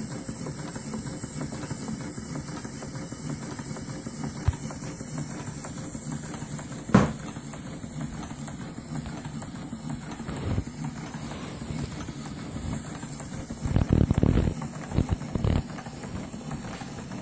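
Scale model of an 1895 reversible steel mill steam engine running steadily at low pressure, a little under 7.5 PSI, with an even hum and a soft hiss. There is a sharp knock about seven seconds in, and a few louder thumps near the end.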